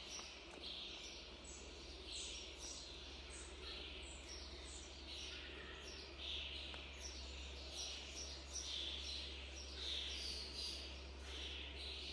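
Birds singing, with short chirping phrases repeating about once or twice a second, over a steady low hum.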